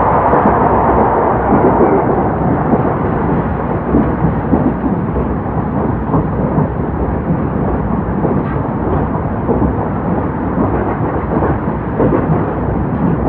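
Old-type passenger coach running on the rails behind an EF70 electric locomotive: a steady, dense rumble of wheels on track with rapid irregular clatter. A higher hiss rides on top in the first two seconds and fades.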